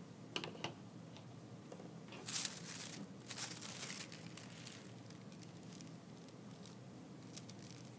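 Tissue paper rustling and crinkling as it is handled and laid down, in two short bursts a couple of seconds in, after a few light clicks near the start.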